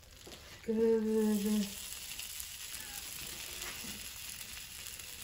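Raw cinnamon roll dough sizzling steadily on the hot plates of an open electric waffle iron as more pieces are set down.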